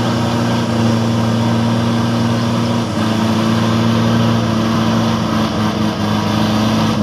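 Diesel engine of a loaded truck bogged in mud, running hard at a steady pitch, with a slight shift in its note about three seconds in.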